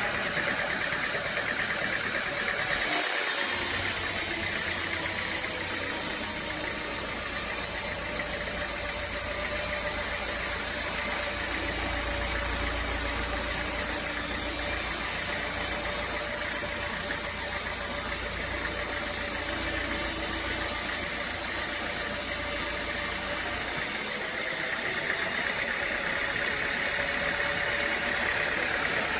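Engine-driven sawmill machinery running steadily. A bright hissing layer over a low rumble comes in suddenly about three seconds in and drops away near the end.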